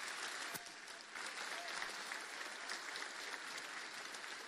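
Audience applauding, a dense clapping that dips briefly about a second in, then carries on and fades near the end.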